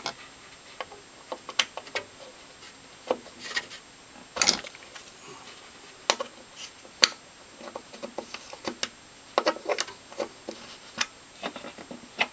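Irregular sharp clicks, taps and knocks of hand tools and metal parts being handled while the table saw's blade alignment is being adjusted, with a short clatter about four and a half seconds in and a sharp knock about seven seconds in.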